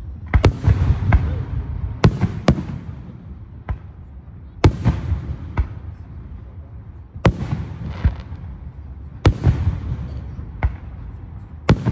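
Aerial firework shells bursting: about a dozen sharp booms at uneven intervals, each trailing off in an echo, with a low rumble underneath.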